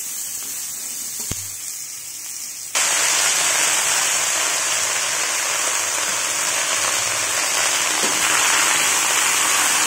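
Green chillies and onion sizzling in oil in a wok, with one knock of the spatula about a second in. Then the sound jumps to a louder, steady, rain-like sizzle as a heap of fresh moringa leaves cooks in the hot wok.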